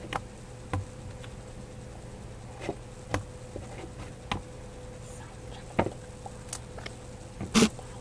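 Scattered light clicks and knocks of containers being handled, a second or so apart with the loudest knock near the end, over a steady electrical hum.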